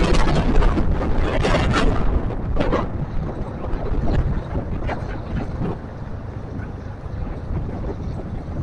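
Wind rushing over the microphone of a moving motorcycle, mixed with road and engine noise from the heavy truck and lowboy trailer close ahead. Harsh bursts of hiss fill the first three seconds, then the noise settles lower and steadier.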